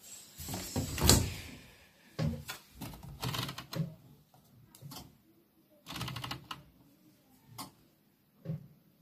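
Bosch Serie 6 front-loading washing machine being handled: a loud clunk from the porthole door and its latch about a second in, then a run of plastic clicks as the programme selector dial is turned and control-panel buttons are pressed.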